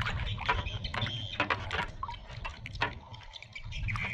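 Water splashing and sloshing in a basin as a hand scrubs a small plastic toy under the surface, in quick irregular splashes.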